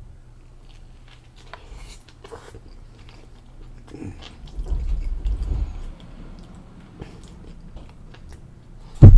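Close-miked chewing and biting of food, with small mouth clicks and a stretch of low rumbling chewing in the middle. One loud, sudden low thump comes near the end.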